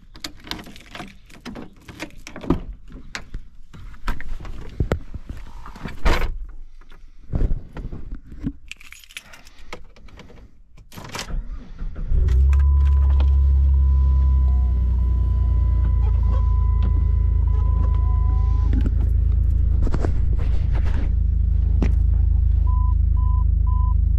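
Clicks and knocks of keys and handling, then about halfway a car engine starts and runs steadily. A steady warning chime sounds for a few seconds after the start, and a quick string of beeps comes near the end.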